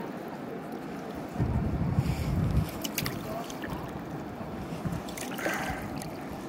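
River water running and lapping around a kayak, with a low rumble on the microphone for about a second, starting about a second and a half in, and a few light knocks.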